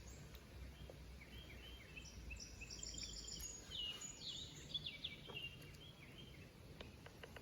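Songbirds chirping and singing, many short high notes and falling sweeps, over a faint low steady background rumble.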